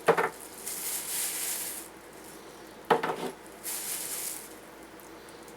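Small hard items of a fire-starting kit clinking and rattling in a metal mint tin as they are handled. There are two sharper clinks, one at the start and one about three seconds in, with softer rattling and rustling between.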